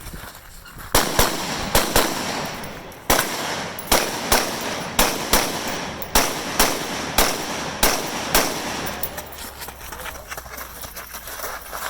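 Rifles firing on a match firing line: a string of sharp reports at irregular intervals, several overlapping, each with a short echo. They come thick and loud for most of the stretch, then thin to fainter shots near the end.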